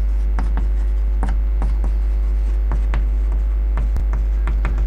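Loud steady mains hum on the recording, with irregular light ticks and taps of chalk writing on a chalkboard.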